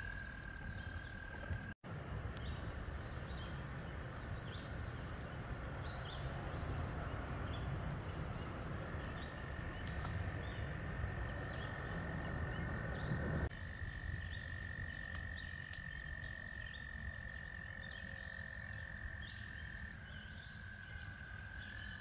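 Frogs trilling: one long, steady high trill held at one pitch, stepping slightly higher about nine seconds in and back down near the end, with scattered short bird chirps over it.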